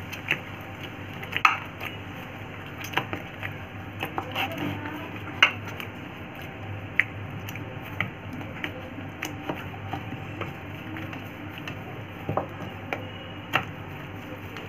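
Hand kneading oiled maida dough in a ceramic plate: irregular clicks and knocks, about one or two a second, as the dough is pressed and the plate shifts. A steady low hum runs underneath.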